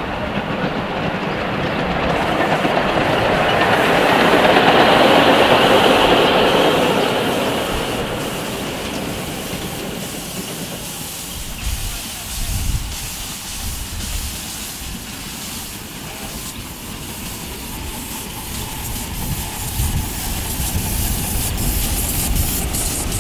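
A 7.25-inch gauge live-steam model of a Union Pacific Big Boy locomotive running past with its freight train, steam hissing from the front of the engine and swelling loudest a few seconds in before fading. Later the hiss is quieter, with a low rumble and the clicking of wheels on the track.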